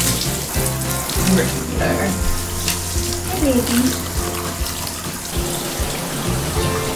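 Water spraying from a handheld shower head onto a dog's wet coat in a bathtub, over background music.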